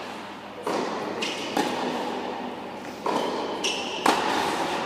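A tennis rally: the ball struck by rackets and bouncing on the court, four sharp pops that ring on in a large indoor hall.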